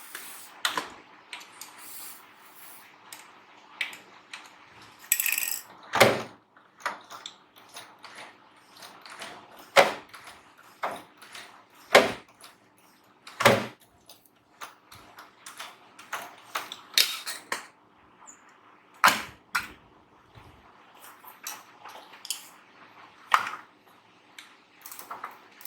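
Sharp clicks, taps and knocks at uneven intervals, the sound of small hand tools and machine parts being handled during a bench repair.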